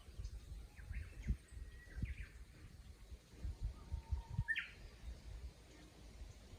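Japanese bush warblers singing, a few scattered phrases; one holds a level whistle and then breaks into a quick rising flourish about four and a half seconds in. Low thumps and rumble recur under the song and are the loudest sounds.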